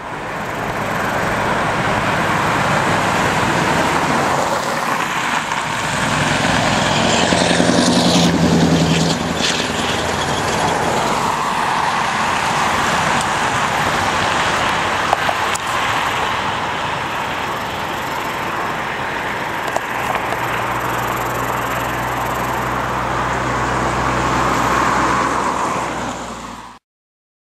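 Scania R500 truck-and-trailer's V8 diesel engine and tyres as it approaches, passes close about eight seconds in with its engine note at its strongest, then pulls away down the road. Near the end, oncoming cars add their own passing noise.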